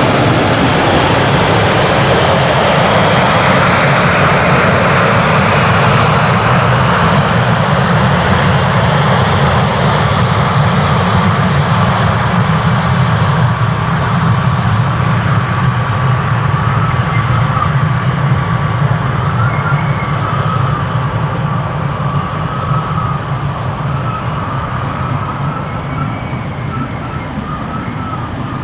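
Embraer 190 jet airliner's turbofan engines running loud, the noise slowly fading and losing its hiss over the second half as the jet draws away. A faint, thin wavering tone rises over it from about ten seconds in.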